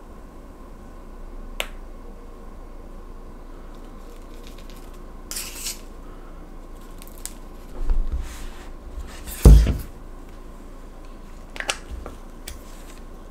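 Scattered handling sounds: a sharp click, a few short rustling and scraping noises, and dull thumps, the loudest thump about nine and a half seconds in.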